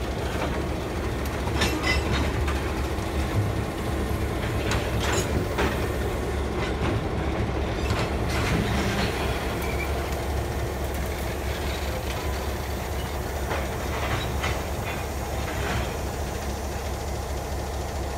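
Tulsa-Sapulpa Union Railway diesel locomotive running past with a steady low engine rumble as it pulls freight cars, with scattered clicks and clanks from the train.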